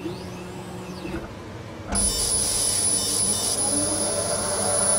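Laser engraving machine marking lettering into a watch case back. A quieter machine hum gives way about two seconds in to a loud steady machine noise with a thin high whine.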